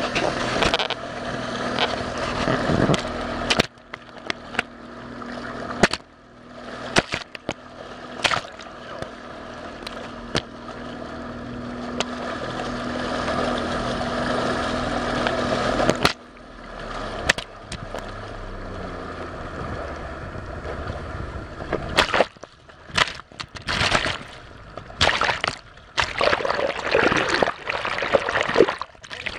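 Ring 16 speedboat's engine humming steadily at speed under rushing water and spray, heard muffled through a waterproof camera case. About halfway through the engine hum fades, and the sound turns into choppy splashing and gurgling as the case dips in and out of the water.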